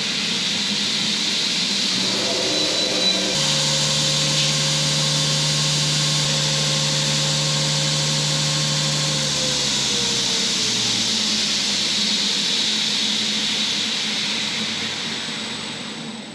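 Woodshop power tools running while a small ash wedge is shaped: a steady machine hiss with a motor hum that winds down about ten seconds in, the rest cutting off near the end.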